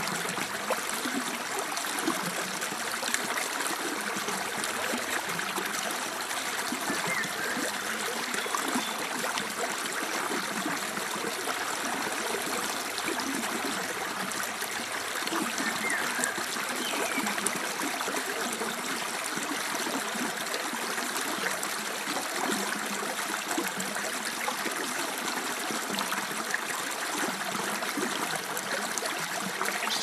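Small, shallow forest stream flowing over rocks and stones, a steady, even rush of water with no break.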